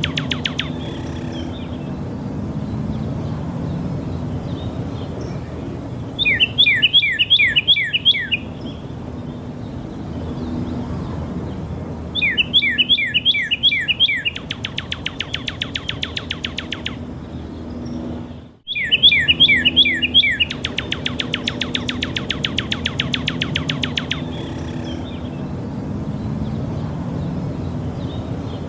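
Northern cardinal singing: repeated phrases of about seven quick down-slurred whistles, each run straight into a fast, even trill of short notes lasting a few seconds, with a new phrase about every six seconds. A steady low hum runs underneath.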